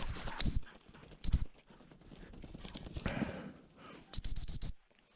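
A dog whistle blown in short high pips: a single pip, a quick double pip, then a rapid run of about six pips near the end, the repeated-pip signal used to call a gundog in. Faint rustling of dry grass between the blasts.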